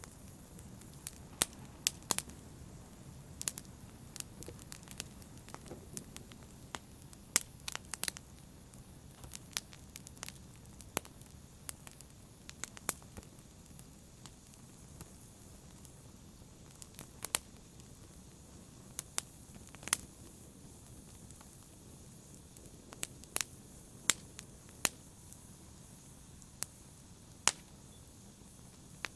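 Fire burning in a fireplace, crackling: a steady low hiss with irregular sharp pops, a few of them much louder than the rest.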